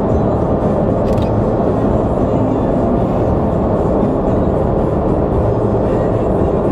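Steady car driving noise heard from inside the cabin at road speed, a hum of engine and tyres on the road, with music playing along with it.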